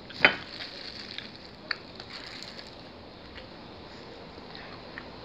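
Plastic-gloved hands pulling at a piece of roast chicken, with a sharp crack about a quarter of a second in and a few softer clicks and crinkles after it.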